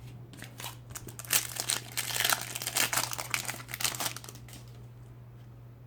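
Foil trading-card packet crinkling as it is handled and torn open, a dense crackle for a few seconds that dies down near the end.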